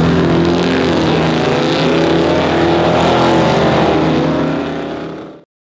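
Muscle car's engine at full throttle accelerating down a drag strip, its pitch climbing, with a drop about four seconds in as it shifts gear before climbing again. The sound cuts off abruptly near the end.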